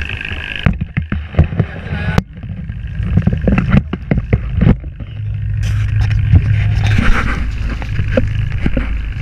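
A hooked fish thrashing and splashing at the water surface beside a boat in the second half, over a steady low hum. Irregular knocks and thumps come earlier.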